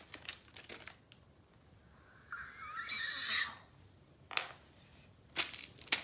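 Plastic toy packaging crinkling briefly, then, about two seconds in, a high wavering squeal lasting just over a second, followed near the end by a few short crackles of the wrapper being handled.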